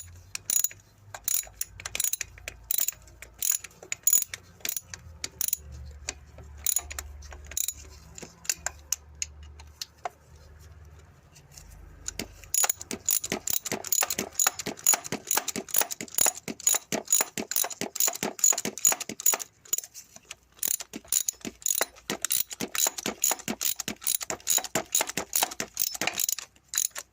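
Socket ratchet handle clicking as the starter motor's 8mm bolts are run in and tightened until firm. Scattered clicks at first, then about halfway through a fast, even run of clicks that stops just before the end.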